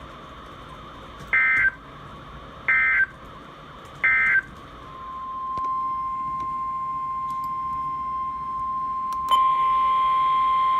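Three short bursts of EAS digital data tones (the end-of-message code that closes a weather alert), followed by a steady single-pitch alert tone of about 1050 Hz, the NOAA Weather Radio warning alarm, which fades in and gets louder about nine seconds in.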